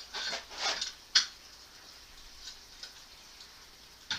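Small metal hardware clinking and rattling as it is handled, with a sharp clink about a second in, then a quiet stretch.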